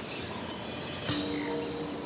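Background music: held notes come in with a cymbal-like crash about a second in, over a faint outdoor background with a few bird chirps.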